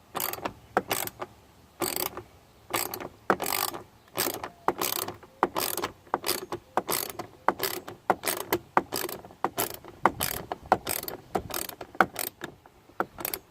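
Hand ratchet with a socket, clicking in a long run of short strokes, one to two a second, while undoing a fastener on a truck door.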